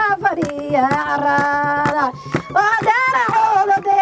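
A woman singing Somali buraanbur poetry in long held and gliding notes, with sharp percussive hits through it.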